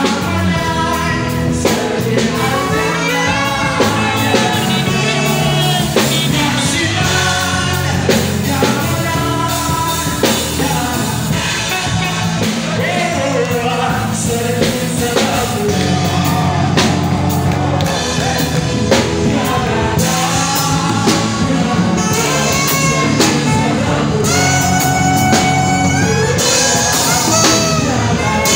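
Live gospel worship song: a male vocalist singing through a PA, backed by a band with a drum kit.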